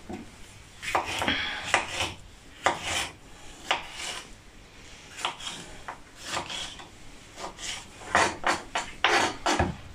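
Kitchen knife slicing red pepper on a wooden chopping board, the blade tapping the board in an irregular run of short strokes.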